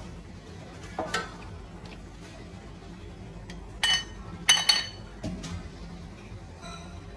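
A metal ladle clinking against the side of an aluminium soup pot: a few sharp, ringing clinks, the loudest pair about four and a half seconds in.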